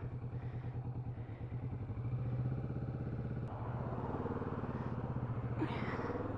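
Motorcycle engine running while the bike is ridden along the road. The note shifts about halfway, then climbs a little near the end.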